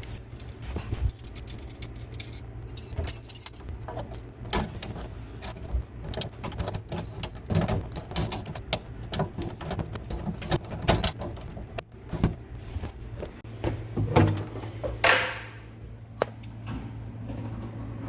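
Irregular metallic clinks, knocks and rattles as a dishwasher is worked into its cabinet opening, with a brief scrape near the end. A low steady hum runs underneath.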